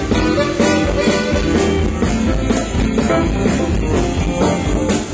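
A band playing live through the stage PA during a soundcheck, a keyboard among the instruments, over a steady beat.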